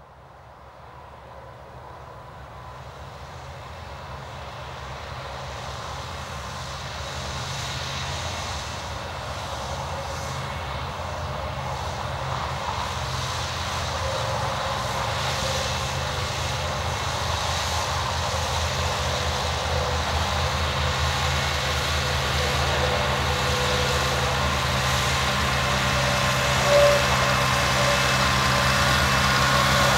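Farmall Cub tractor's small four-cylinder engine running steadily under load as it pulls a plow, growing louder as it comes closer. A short sharp sound stands out near the end.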